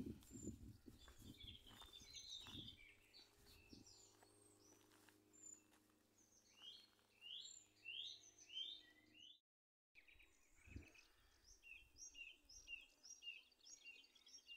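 Faint birdsong in open parkland: several small birds singing repeated short chirps and sweeping notes, with low wind or handling rumble in the first few seconds. The sound cuts out briefly about nine seconds in.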